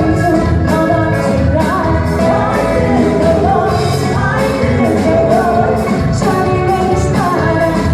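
Live band music with a singer over a steady drum beat.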